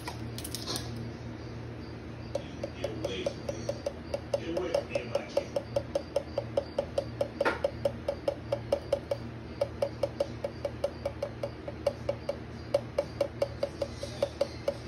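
Black pepper grinder being twisted, its grinding mechanism clicking steadily about four to five times a second, starting about two seconds in and running almost to the end.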